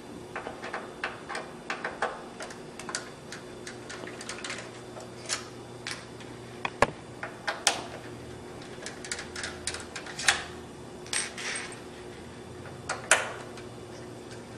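Irregular small clicks and taps of a T10 Torx driver undoing the long screws of an Xbox 360's case, with the screws and plastic case being handled. A few sharper knocks come through, the sharpest about halfway, over a faint steady hum.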